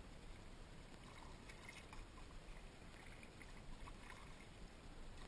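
Faint splashes and drips of a kayak paddle dipping into calm creek water, a stroke about once a second.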